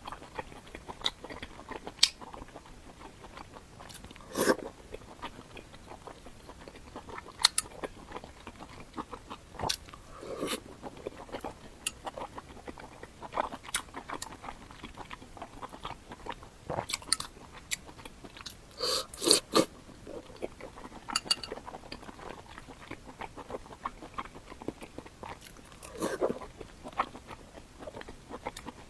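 Close-miked chewing of boiled pork belly: a string of scattered mouth clicks and bites, with louder clusters of chewing about four, ten, nineteen and twenty-six seconds in.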